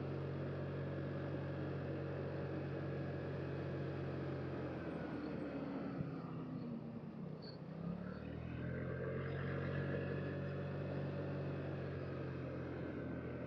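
A 2007 Vespa LXV 150 scooter's 150cc single-cylinder four-stroke engine running steadily while riding. About five seconds in, the engine note falls in pitch and quietens, then rises back to a steady note about three seconds later.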